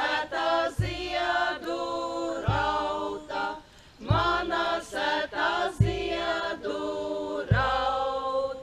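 A women's folk group singing a Latvian Līgo (Midsummer) song in unison, in short repeated lines with a brief break between them. A low thud marks the start of each line, about every second and a half.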